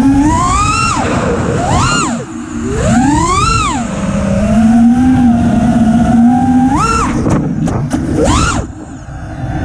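FPV racing quadcopter's brushless motors whining, the pitch sweeping sharply up and back down with each throttle punch, several times. Between the punches it holds a steadier, lower whine, and near the end it briefly goes quieter as the throttle drops.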